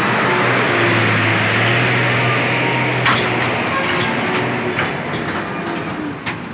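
A vehicle's engine drone and road rush, fading away as it moves off; the low drone stops a little past halfway, and a few faint ticks sound near the middle and end.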